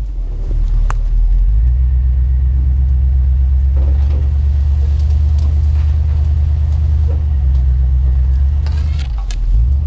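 Engine of a Badger 6x6 six-wheel-drive vehicle running under way with a low, steady rumble. Its note steps up about a second and a half in and dips briefly near the end, with one sharp click early on.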